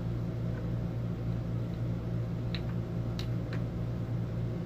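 Steady low electrical hum from a running appliance, with a few light clicks of plastic Play-Doh tools being handled in the middle.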